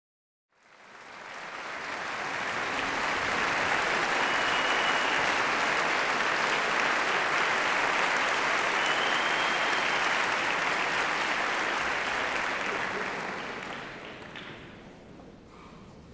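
Audience applauding in a concert hall, swelling in over the first two seconds, holding steady, then dying away about fourteen seconds in.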